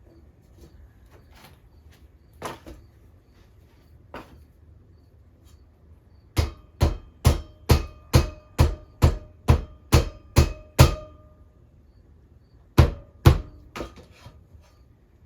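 Hammer blows on metal storage-rack parts during assembly: a few light knocks, then a quick run of about eleven strikes at two or three a second, each with a short metallic ring, and two more strikes a couple of seconds later.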